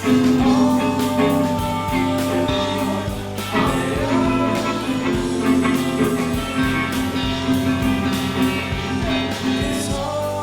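Music: a rock song with guitar and a singing voice.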